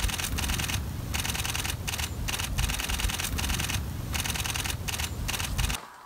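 Camera shutter firing in rapid bursts, runs of fast clicks broken by short pauses, stopping abruptly near the end.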